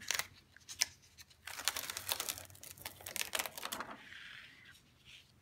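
Duralar plastic film being peeled off a sheet of paper through wet acrylic paint: a couple of light clicks, then about two seconds of dense crackling as the film comes away.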